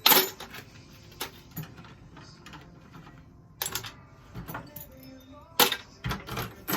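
Small supplies and hardware being handled and set down, a series of sharp clattering knocks: one just after the start, others about a second in, midway, and a quick cluster near the end.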